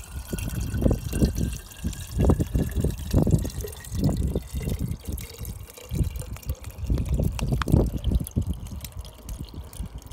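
Water pouring in a thin stream from the corner of a plastic bag into a metal water bottle, trickling and gurgling unevenly as the bottle fills.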